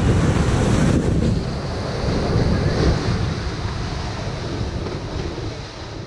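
Ocean surf breaking and washing up a sandy beach, with wind buffeting the microphone, easing off gradually over the last few seconds.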